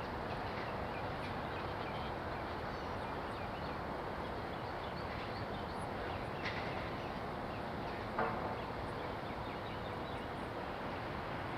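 Steady outdoor background noise, like distant city traffic, with faint scattered chirps and clicks and one brief louder sound about eight seconds in.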